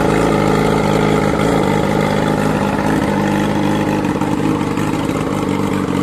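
Yamaha R6 inline-four engine running at a steady speed through a Hurricane Taylor Made aftermarket sport exhaust, giving a loud growl. The level eases slightly in the second half.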